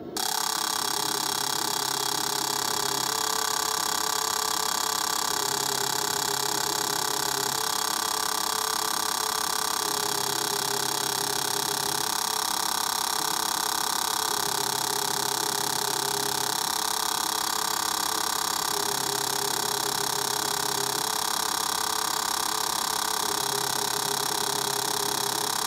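Injector test bench running with a pair of Buell 1125 CR fuel injectors firing rapidly into graduated cylinders: a steady high mechanical buzz, with a lower hum that switches on and off every couple of seconds.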